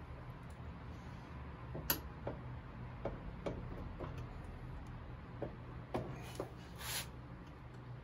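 Scattered light clicks and scrapes of seat-mounting hardware being worked by hand under a motorcycle seat, the sharpest about two seconds in, with a brief rustle near the end.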